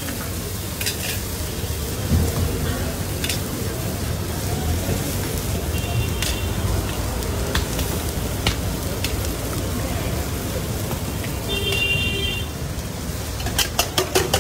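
Steady sizzling hiss of chopped onions and chillies frying on a large flat iron griddle, with occasional single metal clinks. Near the end comes a quick run of sharp clinks from a spoon against a steel cup.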